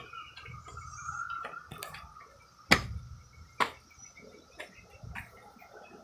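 Cicadas droning steadily in chorus, with a few sharp knocks, the two loudest near the middle.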